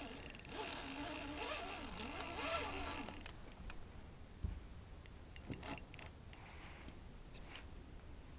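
Spinning reel's drag buzzing in a high, steady whine as a big catfish pulls line off against it, cutting off suddenly about three seconds in. After that only a few light clicks and a dull thump from handling the rod and reel.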